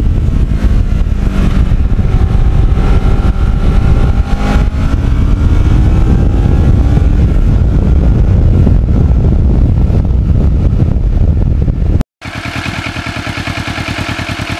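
Kawasaki Ninja 650R parallel-twin motorcycle under way, heavy wind rush with the engine note rising and falling underneath. About twelve seconds in it cuts to the bike's engine idling with an even, rapid pulse.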